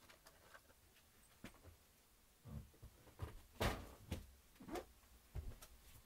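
Faint scattered knocks and rustles of things being handled near the microphone in a small room. They grow busier about two and a half seconds in, with the loudest knock a second later.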